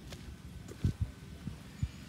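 Footsteps on a paved garden path: a few dull, low thuds, with a close pair a little under a second in and single steps at about one and a half seconds and near the end.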